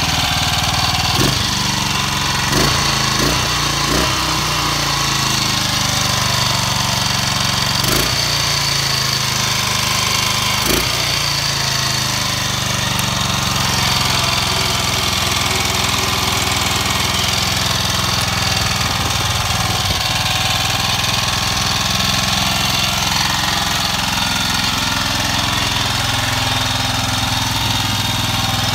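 1942 AJS 16M (Matchless G3L) 350cc single-cylinder engine running steadily at idle on a newly fitted carburettor. There are a few sharp cracks in the first ten seconds or so.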